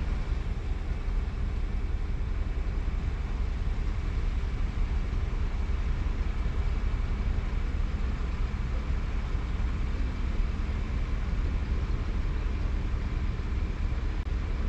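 Steady low rumble of a car heard from inside the cabin, with a faint steady hum over it.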